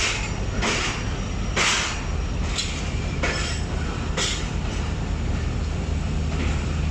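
Diesel locomotive and passenger train moving through the station, the engine running with a steady low drone and short hissing bursts about every second.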